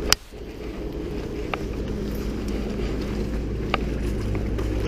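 Steady low rush of the moving river, with a sharp knock right at the start and a couple of light clicks later as the landing net's handle is moved.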